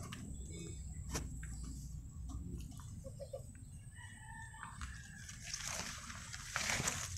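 Footsteps in flip-flops on wet, muddy ground and leaves brushing close by, loudest near the end. A faint bird call held on one note and then dropping comes about four seconds in.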